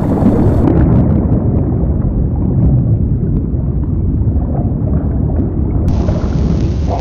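Steady, deep rumbling noise of an underwater-ambience sound effect. It turns duller about a second in and brightens again near the end.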